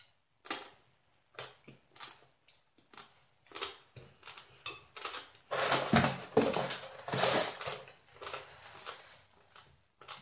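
Close chewing of a mouthful of papaya salad made from dried papaya strands: irregular crunchy mouth sounds from tough, coarse strands. Midway there are about two seconds of louder rustling, a paper napkin being pulled out and handled.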